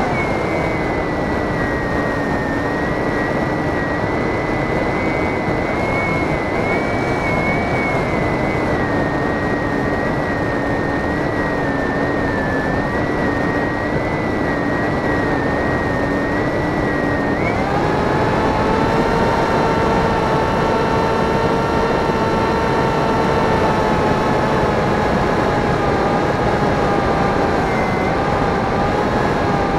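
RC plane's motor and propeller running in flight, a steady whine over a rush of air noise; the motor's pitch jumps to a new steady note a little past halfway, a change of throttle.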